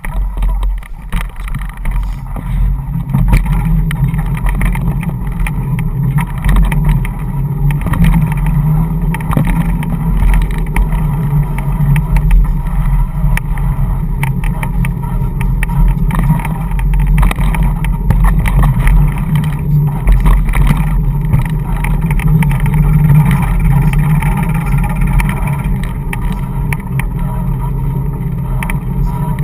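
Dog scooter's wheels rolling over a tarmac park path as a dog pulls it along: a loud, steady low rumble with scattered clicks and knocks.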